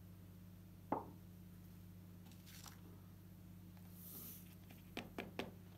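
Loose coloured sand being worked on a sand-painting card: a sharp tap about a second in and a soft hiss of sand sliding, then three quick knocks near the end as the tipped-up card is handled. A faint steady hum lies underneath.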